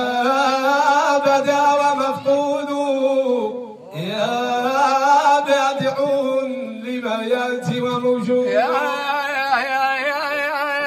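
Men's voices chanting a Sufi devotional chant, drawing out long held notes, with a brief pause for breath about four seconds in. Near the end a higher line winds in quick ornaments over the held note.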